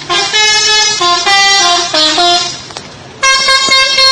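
Bus 'telolet' horn, a modified multi-tone horn, playing a quick run of stepped notes, then after a short break a loud held chord from about three seconds in.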